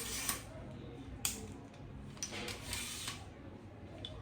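A tripod leg being adjusted by hand: a few sharp clicks and some scraping as a leg section is extended and its lock is worked.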